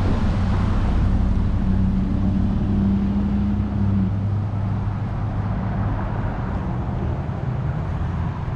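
Street traffic: a passing car's engine hum and tyre noise close by, steady for about four seconds and then fading, over continuous road noise.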